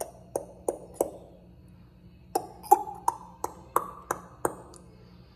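A run of sharp taps with a short ring, about three a second: four, a pause of over a second, then seven more.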